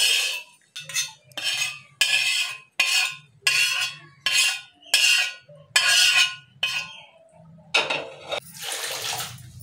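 Metal spatula scraping cooked pumpkin leaves out of a pan into a steel mixer-grinder jar: about ten short scrapes in quick succession, then one longer scrape near the end.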